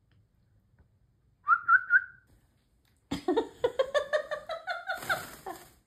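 Amazon parrot giving a short three-note whistle, then a longer run of rapid, pulsing calls.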